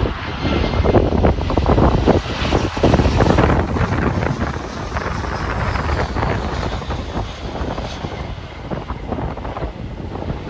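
Airliner engines running, heard under heavy, gusty wind buffeting the microphone.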